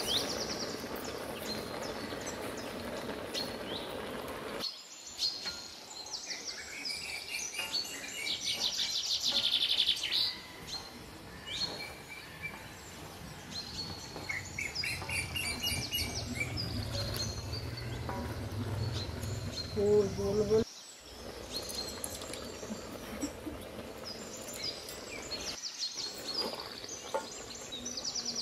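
Birds chirping and singing, with short repeated trills, over a steady outdoor background. A brief louder sound comes about twenty seconds in.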